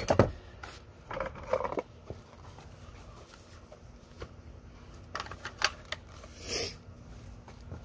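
Handling sounds from a cordless drill held in the hand, with its motor not running: a sharp knock about a quarter second in, a short rustle around a second later, then a couple of clicks and a brief rustle near the end.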